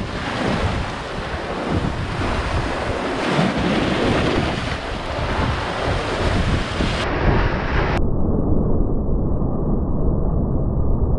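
Sea waves breaking and surging against rocks, with wind buffeting the microphone. About eight seconds in, the high part of the sound drops out suddenly, leaving a dull low rumble.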